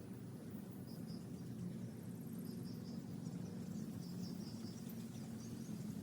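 Faint outdoor ambience: insects chirping, with short repeated chirps and a fast high trill, over a steady low hum.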